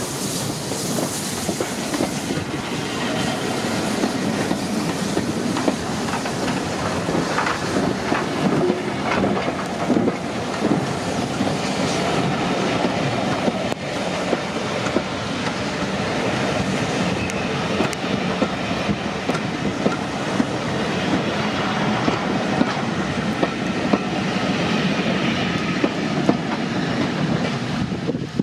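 Railway coaches of a steam-hauled train rolling past, their wheels clicking over the rail joints through a steady running noise.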